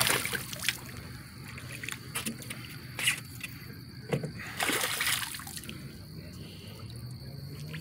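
A hooked fish thrashing at the water's surface, several separate bursts of splashing, the longest about five seconds in.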